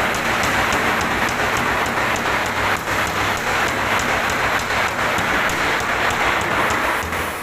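Loud, steady hiss with a low hum beneath it, cutting off near the end.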